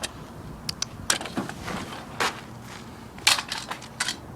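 Razor Ultra Pro Low stunt scooter clacking and scraping: a string of sharp knocks and short scrapes of uneven loudness, the loudest about three seconds in.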